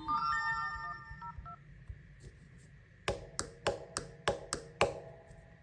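Smartphone ringtone sounds: a short melody of electronic beeps ends about a second and a half in. After a pause comes a run of seven quick, sharp, ringing notes, about three a second.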